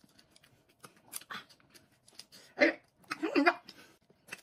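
Close-miked eating: lip smacks and chewing as meat is gnawed off a bone, with quick small clicks throughout. A louder smack about two and a half seconds in is followed by a brief vocal sound.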